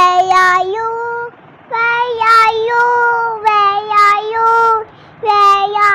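A high child's voice singing a simple children's song melody in short phrases of held, stepping notes, pausing briefly about a second and a half in and again near five seconds.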